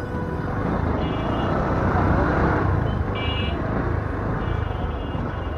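Motorcycle engine running at low speed with road noise, heard from the rider's seat. Two short high-pitched beeps come about one and three seconds in.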